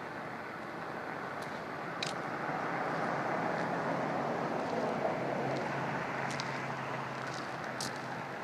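A vehicle passing on a nearby road: its tyre and engine noise swells over a few seconds and then fades, with a few faint scattered ticks.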